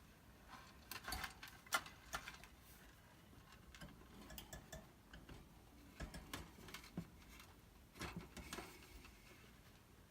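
Faint, irregular clicks, taps and scratching, a few sharper ticks among them: close handling noises, hands working at a small container that holds a mouse.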